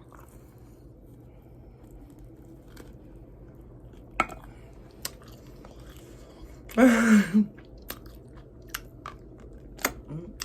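Close-miked chewing of hot chicken wings, with scattered wet mouth clicks and smacks. About seven seconds in comes one short, loud voiced sound from the eater, falling in pitch.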